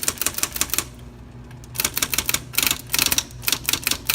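IBM Model 11C electric typewriter (1955) being typed in quick runs, its type slugs snapping against the platen: a short burst of strikes, a pause of about a second, then a longer rapid run. The strikes come with uneven power from key to key, a fault the owner puts down to the power roller underneath the machine.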